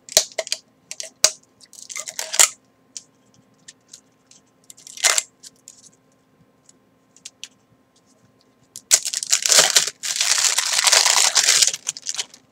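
Product packaging being handled and opened by hand: scattered crinkles and clicks, a short rustle about five seconds in, then a long loud tear of the wrapping lasting about three seconds near the end.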